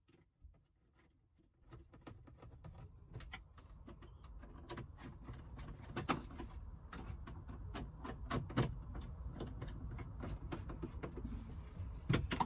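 Hand screwdriver driving T20 Torx screws into a van's plastic glove box, with a run of irregular clicks over a low rustle of handling. It starts about two seconds in and grows louder, with a denser cluster of clicks near the end.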